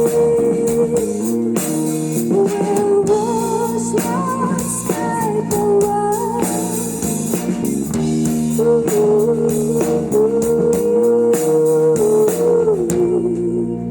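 Live psychedelic rock band playing an instrumental passage: guitar holding and bending notes over bass and drum kit. Near the end the drums stop, leaving sustained held notes.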